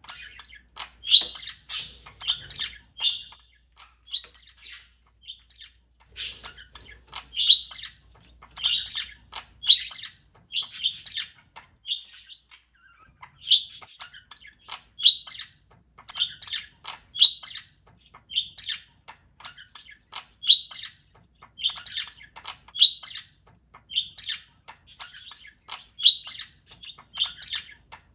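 Pet parakeet chirping: short, high chirps coming in quick runs, several a second, with brief pauses between runs.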